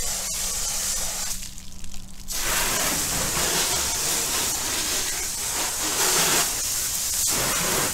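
Soapy car-wash spray hissing steadily from a wash nozzle against the car's lower bodywork. It cuts out briefly about a second and a half in, then resumes.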